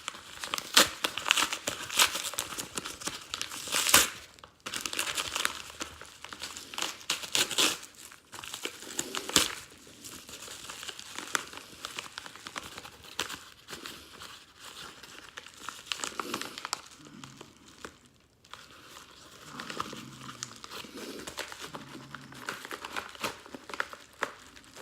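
Parcel packaging being unwrapped by hand: crinkling and tearing of the wrapping in irregular bursts of sharp crackles, with a brief pause about three-quarters of the way through.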